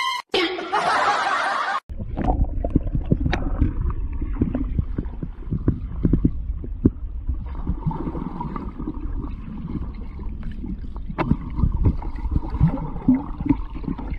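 After a brief hiss in the first two seconds, there is muffled underwater sound of a dog diving in a rocky stream: a steady low rumble and gurgling of moving water and bubbles, with scattered knocks and clicks throughout.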